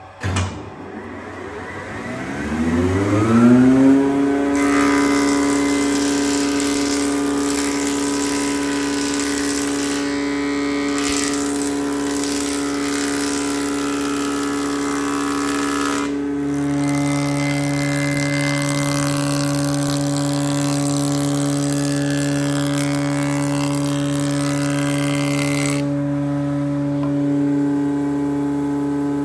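Wadkin RM planer thicknesser switched on with a clunk, its three-phase motor and cutter block running up to speed with a rising whine over about four seconds, then running steadily. A hiss comes and goes over the steady tone while a board is pushed across the table over the cutters.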